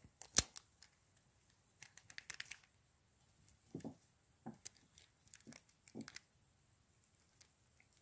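A Master Lock No. 3 padlock's shackle snapping shut with one sharp click about half a second in. This is followed by scattered faint metallic clicks and taps as the padlock and small picking tools are handled.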